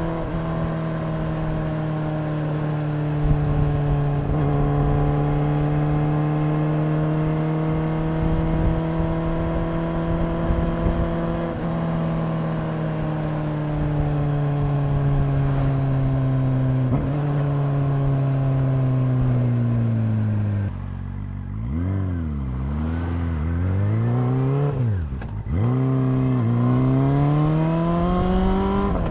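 Honda CB400SF's inline-four engine running at a steady cruise, heard from the rider's seat with wind noise. About two-thirds of the way in the revs fall as the bike slows, a few quick throttle blips follow, and near the end the revs climb again as it accelerates.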